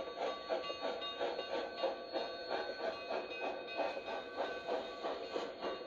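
Narrow-gauge steam train running, its sound pulsing rapidly at about four or five beats a second, with a few faint steady tones underneath.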